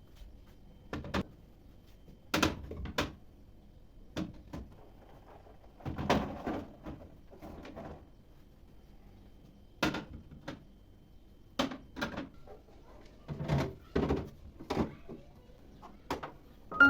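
Household handling sounds: about a dozen separate knocks and clacks of items being set down and doors or drawers being opened and shut, with a longer scraping sound about six seconds in.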